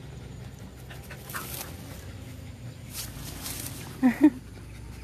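Dog panting, with two short, loud yips about four seconds in.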